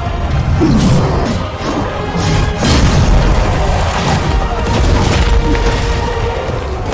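Dramatic film score with deep booming hits and crashing impact sound effects, three sharp hits standing out along the way.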